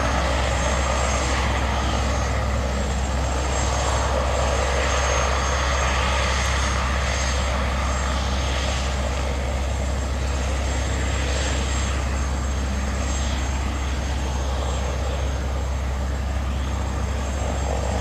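Airbus AS350B3 helicopter running on the ground with its rotor turning, its turboshaft giving a steady whine with thin high tones, over a steady low rotor hum.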